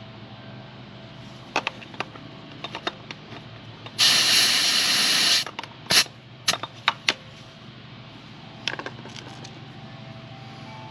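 A loud burst of air hissing about four seconds in, lasting about a second and a half: air escaping at the motorcycle tyre valve as the portable compressor's cam-lock air chuck is unhooked. Several sharp clicks and clacks of the chuck and hose follow, over a low steady hum.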